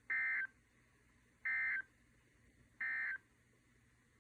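Emergency Alert System end-of-message data tones: three short buzzy bursts of digital SAME data, about a second and a third apart, marking the end of the weather alert broadcast.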